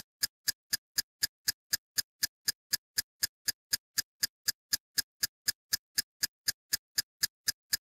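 Steady mechanical ticking added as a sound effect: sharp, even ticks at about four a second, like a fast clock.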